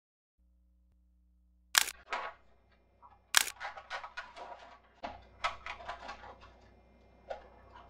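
Clicking of a small handheld camera: two sharp loud clicks about a second and a half apart, then a run of smaller clicks and handling noises, over a faint steady hum.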